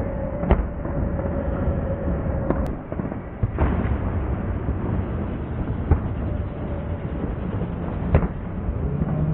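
Fireworks going off: about five sharp bangs from bursting shells, spread through a dense, continuous din of more fireworks.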